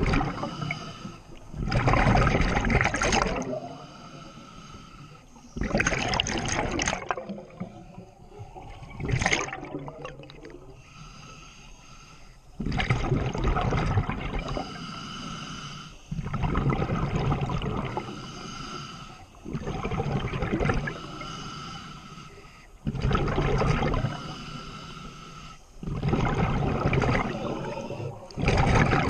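Underwater breathing through a scuba regulator: hissing breaths and bubbling exhalations in a slow, even rhythm, one burst every three to four seconds.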